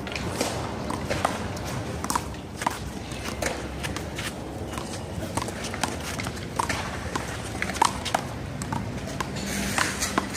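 Sharp, irregular slaps of a rubber handball during a one-wall rally: struck by hand, hitting the wall and bouncing on the court, with shoe scuffs between the hits.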